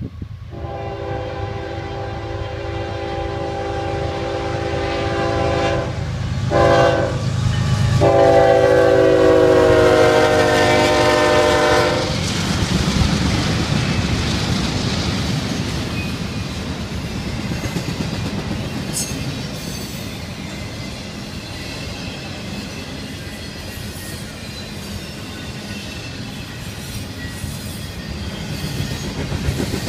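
Diesel freight locomotive's multi-chime air horn sounding three blasts, a long one, a short one and a long, loud one, as the lead units approach and pass. After the horn stops, the locomotives and a long string of intermodal container and trailer cars rumble and clatter by on the rails.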